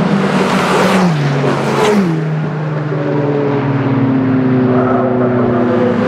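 Two Seat León touring race cars go past close by one after the other, each engine note dropping in pitch as the car passes about one and two seconds in. Engine running at a steady note follows as further cars come through.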